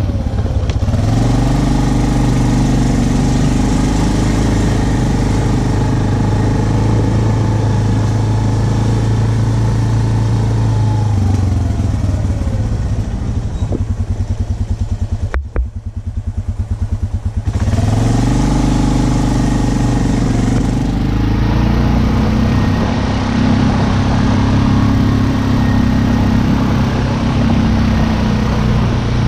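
Yamaha ATV engine running as it rides, climbing in pitch about a second in. About halfway through it falls back to a slow idle for a few seconds, with the separate firing pulses audible. It then revs back up and runs on.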